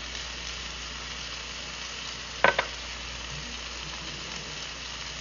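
Chopped onion, tomato and green chile sizzling steadily in olive oil in a frying pan, with two quick clicks about two and a half seconds in.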